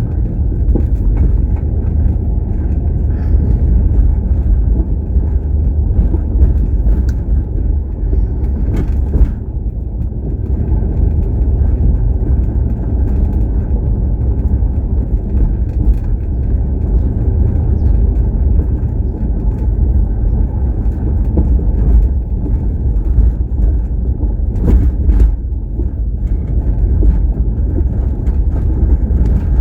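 A moving car's steady low road and engine rumble, with a few faint clicks and knocks over it.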